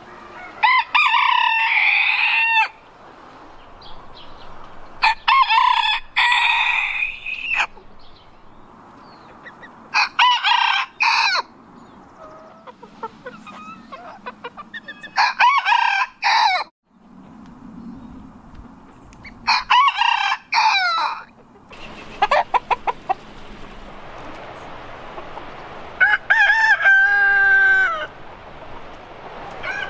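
Roosters crowing, about six long crows a few seconds apart: Japanese bantam roosters first, then near the end a Proveis Ultentaler rooster among its hens, with some clucking.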